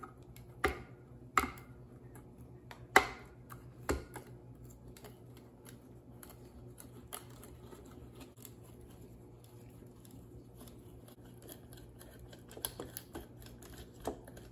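Flathead screwdriver working the screws inside a Rancilio Rocky grinder's hopper, metal clicking against metal. Several sharp clicks in the first four seconds, faint ticking after, and a few more clicks near the end.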